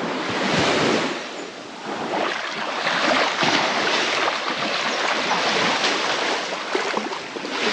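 Small waves washing in the shallows of a sandy beach: a steady rushing that swells and eases.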